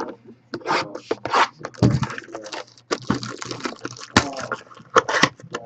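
Trading-card packaging and cards being handled: irregular rustling, crinkling and scraping in quick short bursts as the next pack is opened. A steady low hum sits underneath.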